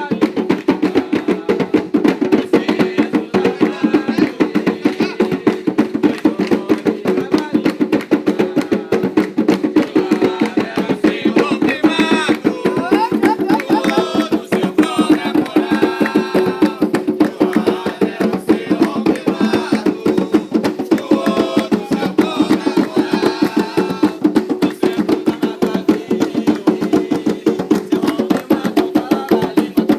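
Hand drums (atabaques) beating a fast, steady rhythm for an Umbanda ponto, with voices singing over them at times.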